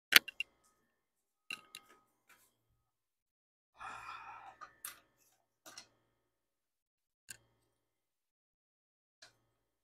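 Scattered clicks and knocks of tools and parts being handled on a workbench while a boring guide is set up, with a short rattling scrape about four seconds in. The sharpest knock comes right at the start.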